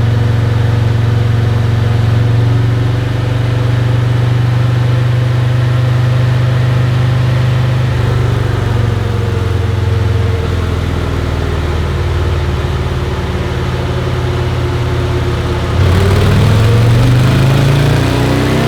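Harley-Davidson Milwaukee-Eight V-twin running steadily on a chassis dyno, then near the end the throttle opens and the engine pitch climbs as a dyno pull begins.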